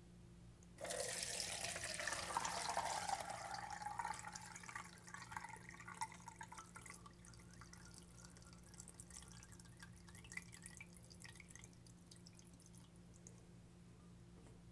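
Warm melted spiced clarified butter poured from a pot through a fine-mesh strainer into a plastic jug. It starts suddenly about a second in as a steady stream, then thins after a few seconds into a trickle and scattered drips.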